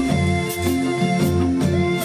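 Background music with a steady beat, string instruments playing a repeating melody.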